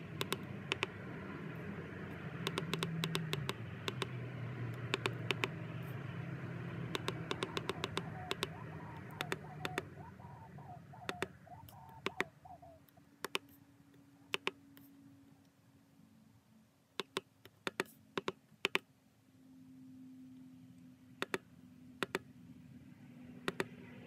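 Buttons on a Husqvarna Automower 315 robotic mower's keypad being pressed, giving short sharp clicks, often several in quick succession, with pauses between runs. A low background hum fades out about halfway through.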